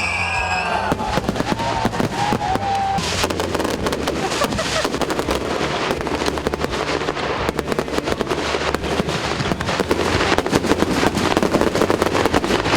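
Fireworks display going off: a dense, rapid run of crackling bangs and pops that grows thicker and louder near the end.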